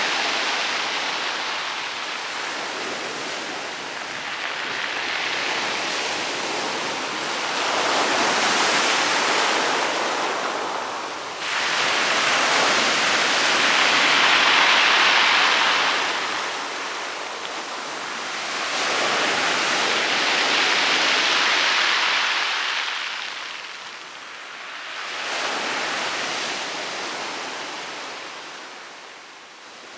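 Rough sea waves crashing onto a pebble beach, the surf swelling and ebbing in slow surges every few seconds, the loudest in the middle, dying down near the end.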